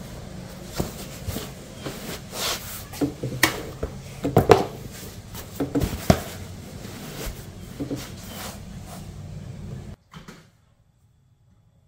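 A series of knocks and clunks, like things being handled or opened, over a steady low hum; both cut off abruptly about ten seconds in.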